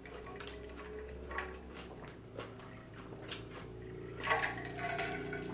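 Quiet eating and drinking at the table: sips from a tumbler and chewing of a lettuce wrap, with small wet clicks of the mouth about once a second.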